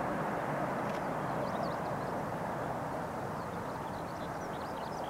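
Jet engine noise of a Boeing 737-800's CFM56 turbofans as the airliner descends to touch down, a steady noise slowly fading as it moves away. Small birds chirp faintly from about a second in.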